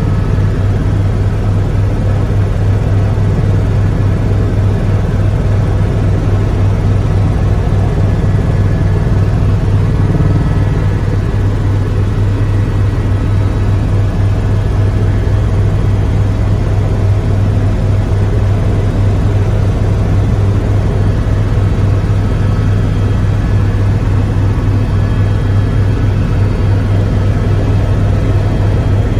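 Helicopter in steady cruising flight heard from inside the cabin: a loud, unchanging drone of engine and rotors with a strong low hum.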